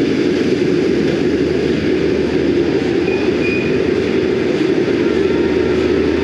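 Heritage train's wooden passenger carriages rolling past close by, a steady rumble of wheels on rail, with a brief faint high squeal about three seconds in.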